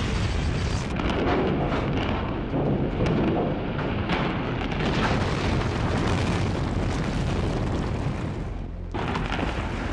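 A reinforced-concrete high-rise coming down in a controlled implosion: a dense, continuous rumble of collapsing structure with a few sharp cracks of detonating charges or breaking concrete. The noise breaks off suddenly about nine seconds in, then resumes.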